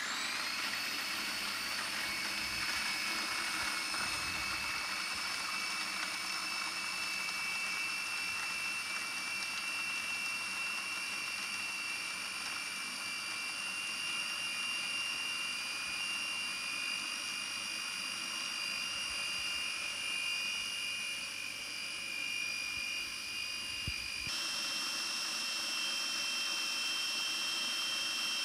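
Electric food processor motor running with a steady whine as its blade whips frozen strawberries, banana and chilled cream into a mousse. It spins up right as it is switched on, and about 24 seconds in the whine steps higher.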